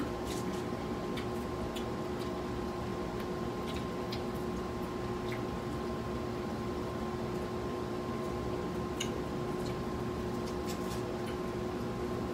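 Eating sounds: scattered small clicks and squishes of fried chicken being pulled off the bone by hand and chewed, over a steady hum with a few constant tones.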